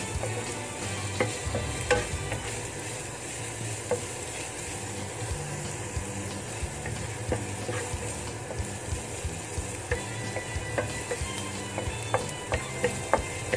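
Minced garlic and ginger sizzling steadily in hot oil in a nonstick frying pan, stirred with a wooden spatula that taps and scrapes against the pan every so often, the taps coming more often near the end. This is the aromatics being fried until fragrant and golden.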